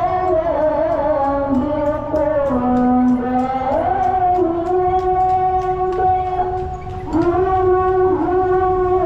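Music: a melody of long held notes that slide up and down between pitches, over a light ticking beat of about four ticks a second.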